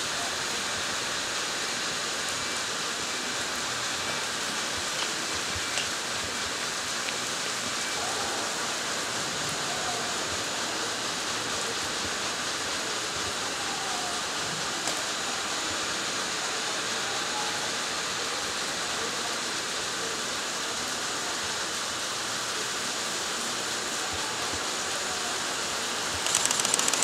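Steady hiss of falling water across the platform and tracks. About a second before the end, an approaching train's noise rises suddenly over it.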